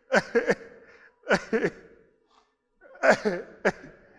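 A man's voice in three short bursts, about a second apart.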